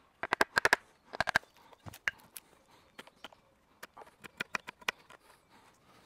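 A wooden baton striking the spine of a Victorinox Venture fixed-blade knife, driving the blade down through the end of a split birch half to trim it to thickness. Sharp wooden knocks come in two quick runs of several strikes in the first second and a half, then as scattered single knocks.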